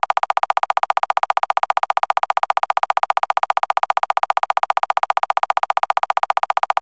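A rapid, evenly pulsing electronic tone, about ten pulses a second, steady and loud, cutting off abruptly at the end.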